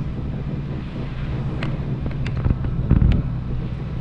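Steady low hum of a Boeing 737's jet engines heard from inside the passenger cabin, with a few sharp clicks and a heavier low thump about three seconds in.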